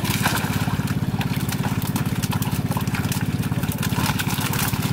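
A small engine running steadily at idle, a fast, even chugging, with light splashing of water over it.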